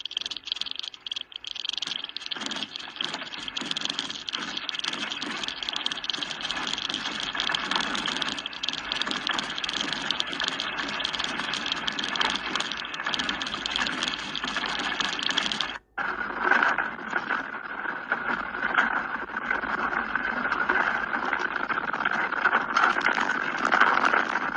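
Continuous rattling and clattering over a steady hiss: a fixed outdoor camera and its mount shaking in a strong earthquake. About 16 seconds in it cuts off abruptly and a similar rattling noise follows, with a lower hiss behind it.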